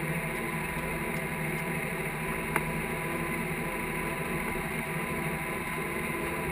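Case IH tractor's diesel engine running steadily, heard from inside the cab. There is a single sharp click about two and a half seconds in.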